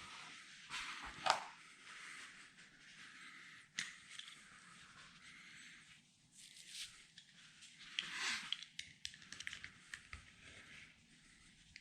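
Rubber windscreen seal being cut and worked free by hand: faint, irregular scraping, rubbing and tearing sounds with sharp little clicks, the loudest about a second in.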